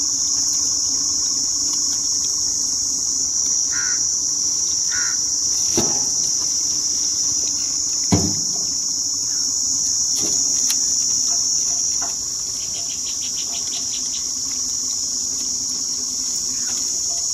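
Steady high-pitched insect chorus, with a faint low hum underneath and two short knocks about six and eight seconds in.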